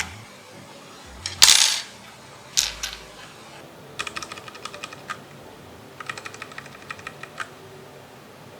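Mechanical keyboard being handled, with two loud clatters, then two quick runs of key clicks, about ten a second, each click with a slight metallic ring.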